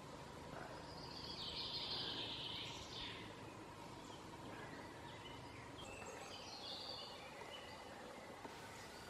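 Faint woodland birdsong over a steady background hiss: a brighter phrase of song about a second in, and a run of short notes stepping downward around six seconds in.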